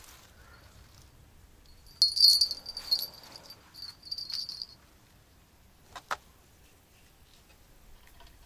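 Small bite-alarm bells on a fishing line jingling for about two and a half seconds, starting about two seconds in, as a fish tugs at the bait. A short click about six seconds in.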